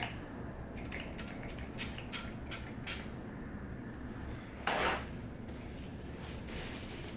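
Handling noise from an AR-15 lower receiver being worked on with gloved hands and a paper towel: a run of light clicks and taps, then one short, louder rush of noise about five seconds in, over a low steady room hum.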